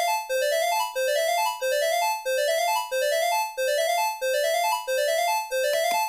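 Synthesized EAS-style alarm tone with a keyboard-like timbre: a quick rising run of notes that repeats about every two-thirds of a second in a steady loop.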